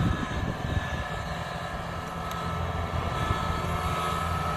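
Large diesel engine running steadily with a low, even hum, and a thin high whine coming in from about three seconds in.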